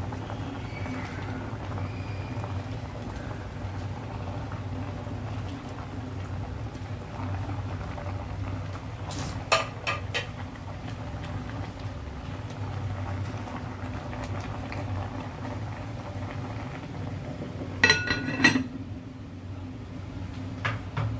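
Fish soup boiling steadily in a glass pot, with a steady low hum under the bubbling. A few sharp clinks come about halfway through. Near the end the glass lid is set on the pot with a ringing clink.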